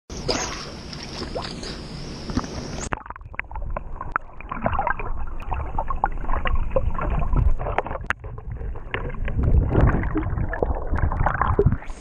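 Rushing waterfall water, then about three seconds in the microphone goes under water and the sound turns muffled and dull: churning water and bubbles with many irregular knocks and clicks. Right at the end it comes back up into the full rush of the falls.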